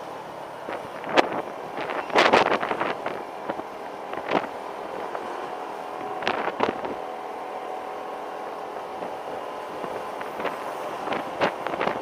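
Motor scooter riding along a road: a steady engine hum under wind noise, with several short, louder bursts of noise scattered through.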